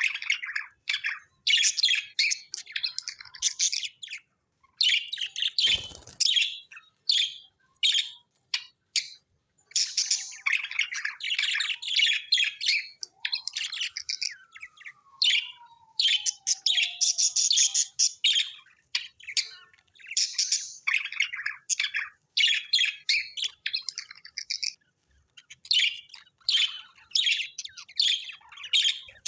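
Budgerigars chirping and chattering in quick bursts of a second or two with short gaps between, with one sharp click about six seconds in and a falling whistle partway through.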